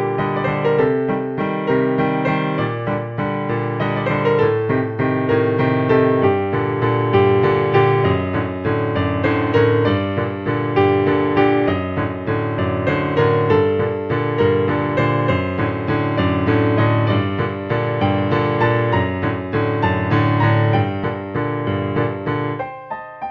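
Background piano music, a steady flow of struck notes, dropping to a quieter, sparser passage near the end.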